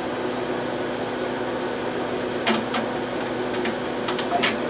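Cooling fans of a Tektronix Type 555 vacuum-tube oscilloscope running with a steady, noisy hum. A few short knocks and clicks, about two and a half seconds in and again near the end, as the instrument is handled and shifted on its cart.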